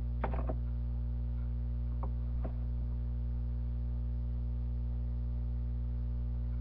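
Steady electrical mains hum, with a short sound just after the start and two faint clicks about two and two and a half seconds in.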